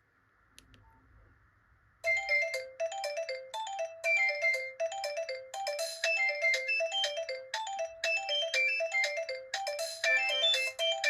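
Nokia 3109c ringtone starting about two seconds in after a near-silent pause with a faint click. It plays a quick, bright melody of short electronic notes in a phrase that repeats about every two seconds.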